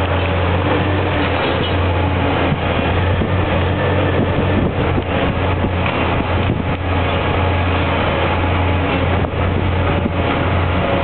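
High-reach demolition excavator's diesel engine running steadily. Irregular knocks and clatter of concrete being broken and falling come mostly in the middle and again near the end.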